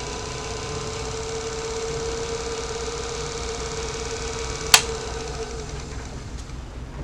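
A 1965 Pargo golf cart's GE electric drive motor running in reverse on the bench with a steady whine. A sharp click comes near the end, and the whine dies away about a second later as the motor spins down.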